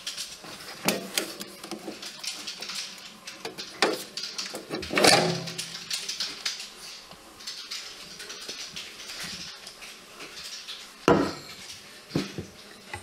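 Clicks, knocks and clatter as a bread machine is opened and its metal baking pan is lifted out and set down on a wooden counter, with the loudest knocks about five seconds in and again about eleven seconds in.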